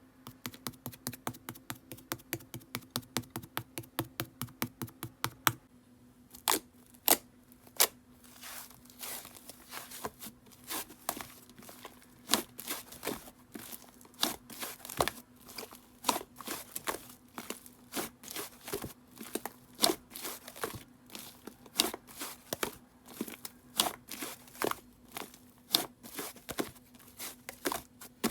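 White fluffy clay slime being squeezed and poked by hand: a quick regular run of small clicks, about four a second, for the first five seconds or so, then scattered sharper pops and crackles. A faint steady low hum sits underneath.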